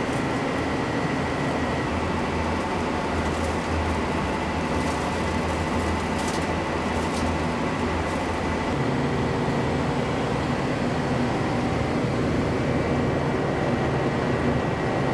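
Mayfran ConSep 2000 chip and coolant separator running: a steady motor and drive hum with a faint high whine, over a hiss of coolant spraying across its rotating filter drum. The low hum shifts in pitch about nine seconds in.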